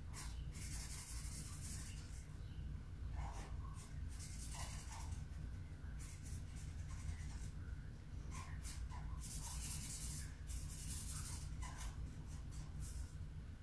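Marker drawing on a sheet of paper on a wall: scratchy strokes, several half a second to a second and a half long, over a steady low hum.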